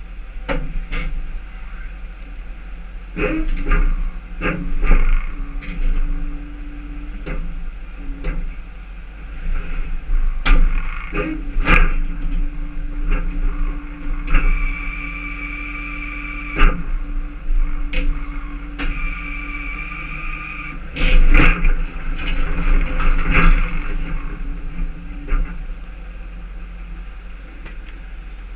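Tow truck running, with repeated metallic clanks and knocks from its wheel-lift gear. About halfway through, two steady high whines of about two seconds each come a few seconds apart.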